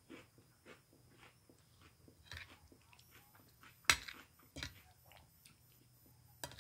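A person chewing food close to the microphone, with soft rhythmic mouth sounds. There is a sharp click about four seconds in.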